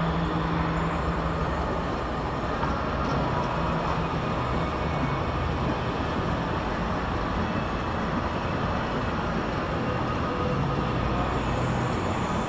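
Electric go-kart driving on an indoor track, heard from the driver's seat: a steady rumble of motor, tyres and chassis with a faint whine, running on without pauses.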